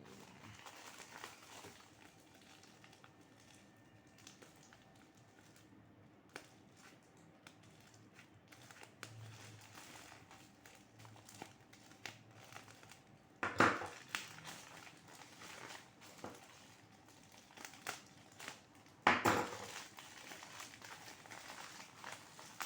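Packaging being handled and opened by hand: plastic wrapping crinkling and rustling with small clicks, and two louder sudden rips or scrapes about thirteen and nineteen seconds in.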